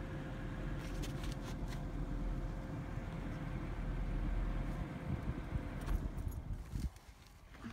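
A vehicle engine running with a low rumble and a faint steady hum, with a few light clicks and rattles. The rumble cuts off suddenly about seven seconds in.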